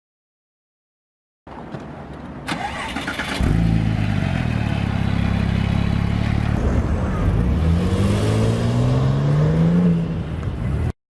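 Porsche 911 Turbo twin-turbo flat-six starting: a couple of seconds of cranking with a sharp click, then it catches and settles into a loud, steady high idle. In the last few seconds the engine note climbs in pitch before the sound cuts off suddenly.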